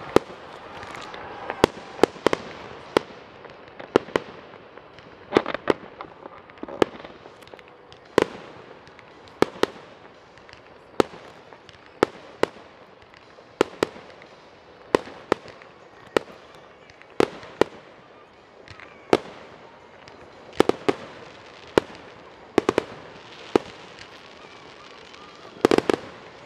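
Aerial fireworks going off: sharp bangs of bursting shells about once a second, with a quick cluster of several bangs near the end.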